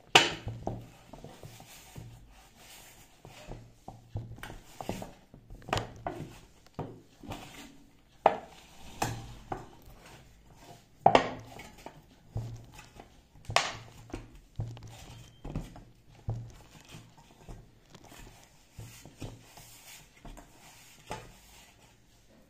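Hands kneading atta dough in a stainless steel bowl: irregular knocks and clanks of the metal bowl shifting against a wooden table as the dough is pressed and turned, a few of them ringing briefly. The loudest knocks come right at the start and about 11 and 13 seconds in.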